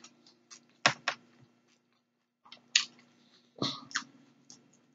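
Close-up eating sounds: a few sharp crunches and wet mouth clicks of someone chewing, spaced about a second apart with a short lull in the middle, over a faint steady hum.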